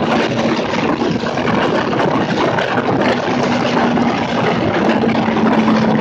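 Motorcycle riding along at a steady speed: a constant engine note under a loud, even rush of wind.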